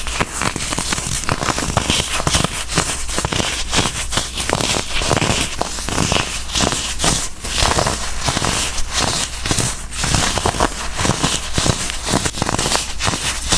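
Blocks of baked baking soda being crushed, a dense run of crisp crunching and crackling with many small snaps, steady throughout.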